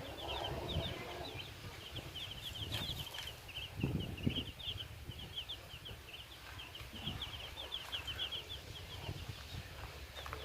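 Many small birds peeping in a rapid, continuous chatter of short, high, falling notes, with a few soft thumps underneath.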